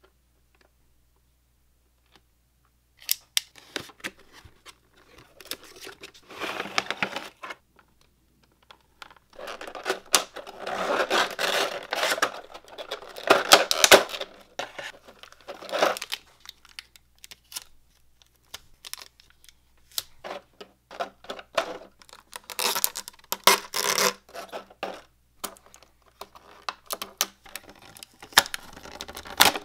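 Hands unpacking a boxed figure: the cardboard box is handled and opened, and the clear plastic blister tray and film crinkle, rustle and click as they are pulled apart and peeled. The handling starts about three seconds in and comes in irregular bursts, the longest in the middle and again a little past two thirds of the way through.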